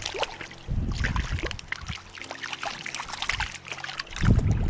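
Shallow creek water trickling and lapping, with faint sustained background-music tones underneath in the middle. Wind buffets the microphone with a low rumble near the end.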